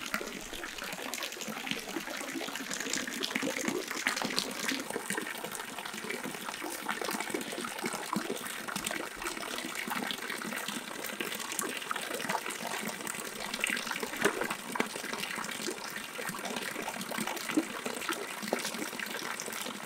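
Pond water splashing and sloshing as a drag seine net is hauled through it, with many small irregular splashes.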